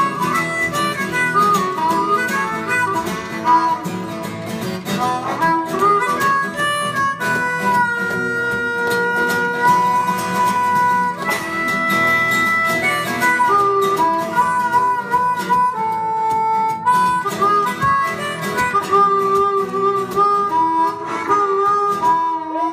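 Harmonica solo over a strummed acoustic guitar, the harmonica carrying the melody in a mix of quick runs and longer held notes.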